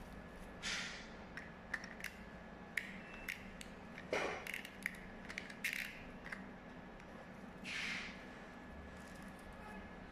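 Small plastic clicks and short scrapes as a screwdriver turns the reel of a VHS cassette, winding the repaired tape back in; scattered light clicks with four brief swishes.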